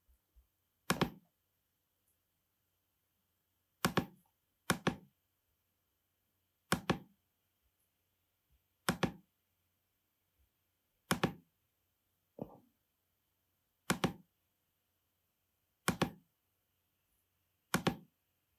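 Ten short, dull clicks of a computer's pointing device, one every one to three seconds, with near silence between them.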